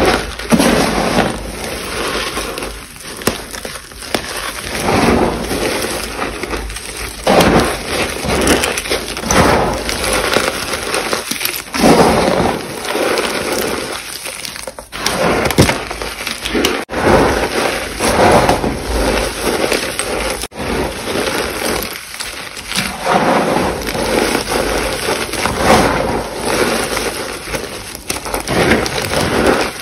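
Dry chalk crunching and crumbling as it is crushed and squeezed by hand, a gritty crackling that swells and eases in repeated waves.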